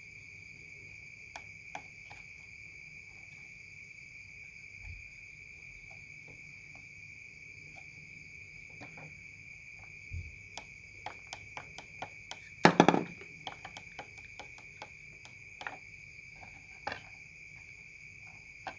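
Scattered sharp clicks and clatter of crocodile clips, wires and components being handled on a workbench. The loudest is a brief burst of rattling clicks about two-thirds of the way in. A steady high-pitched trill, like an insect's, runs underneath.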